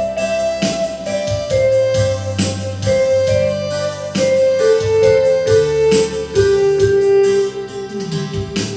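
Electronic keyboard music: a slow melody of held notes stepping gradually downward, over a bass line and a steady beat from the keyboard's accompaniment.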